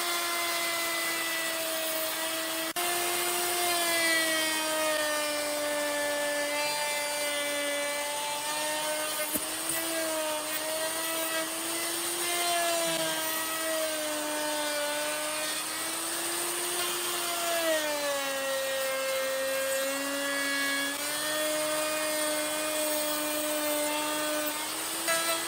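Electric power tool whining as it works wood, over a steady hiss of cutting. Its pitch sags and recovers as the load changes, dipping most about three-quarters of the way through. There is an abrupt break about three seconds in.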